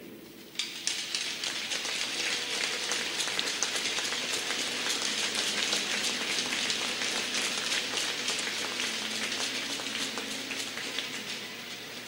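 Large crowd in an ice hockey arena applauding, a dense patter of many hands clapping that starts about half a second in and eases off near the end.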